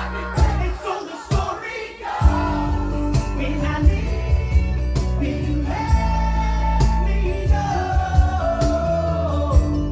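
Live acoustic rock band playing, with singing over the instruments and regular percussive hits. The music thins out briefly about a second in, then the full band comes back in.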